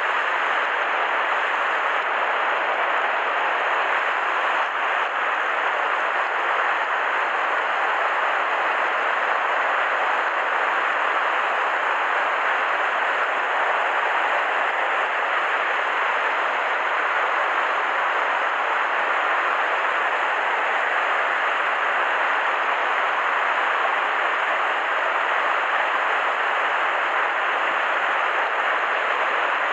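Shallow river rapids rushing steadily over rocks and boulders.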